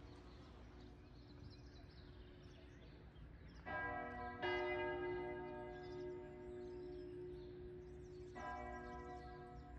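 Church bells ringing: three strokes, two close together a little before the middle and one near the end, each note humming on long after it is struck.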